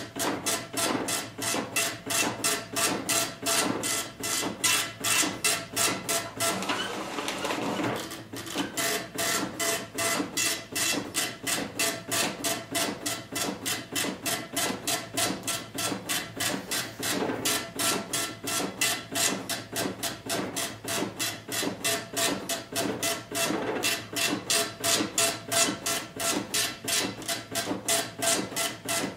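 Dot-matrix printer printing line after line on tractor-feed paper: an even run of short print-head passes, about three a second, with a brief break about eight seconds in.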